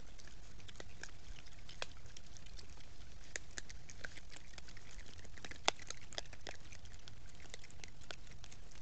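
Coatis foraging in cracked corn and leaf litter: irregular sharp clicks and crunches of kernels and dry leaves, with one louder click a little past the middle, over a steady low hum.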